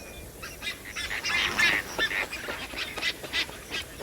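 A colony of lesser flamingos calling: many short calls overlapping in a steady chatter, busiest in the middle.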